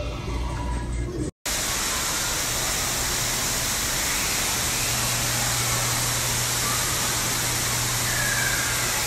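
A low hum cut off abruptly about a second and a half in, then a steady, even rushing hiss with a faint low hum beneath it.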